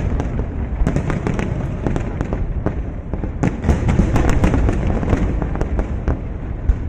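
Aerial fireworks display: a dense, rapid barrage of shell bursts, bangs and crackles going off one over another, thickest about a second in and again from about three and a half to five seconds in.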